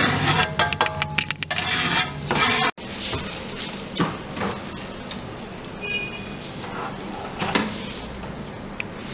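Cheese sandwich sizzling on an electric contact grill, with clicks and clatter of kitchen work. The sound drops suddenly about three seconds in and goes on as a quieter hiss with a few scattered clicks.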